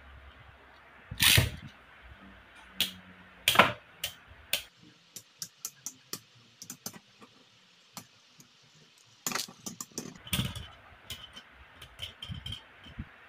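Beyblade Burst tops clashing in a plastic stadium: a run of sharp plastic clicks and knocks, with a few loud hits and quick light clicks between, some ringing briefly near the end.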